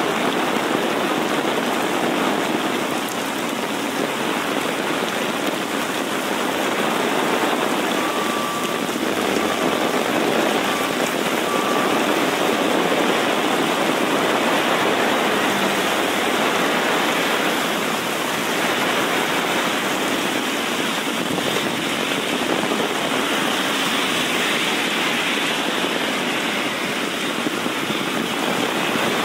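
Heavy rain pouring onto a wet city street, a steady even hiss. About a third of the way in, a few short, high beeps sound over it.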